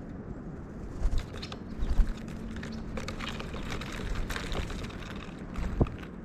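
Birds pecking and moving about at a feeder close to the microphone: a run of short taps and clicks, with louder thumps about one, two and six seconds in.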